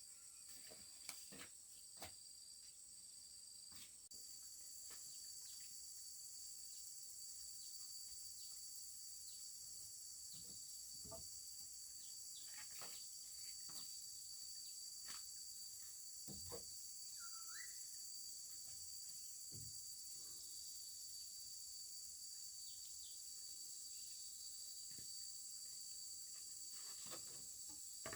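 Steady high-pitched chorus of insects, with scattered faint knocks and taps.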